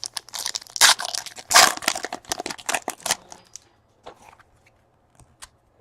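Plastic wrapper of a trading-card pack being torn open and crinkled for about three seconds, followed by a few light clicks and ticks as the cards are handled.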